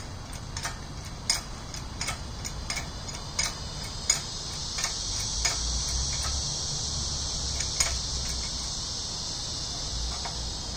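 Hydraulic engine hoist being pumped by its hand lever under load, lifting a concrete-footed fence post: a sharp click with each pump stroke, about every 0.7 s, thinning out after about four seconds. A steady high insect chirring comes up about halfway through.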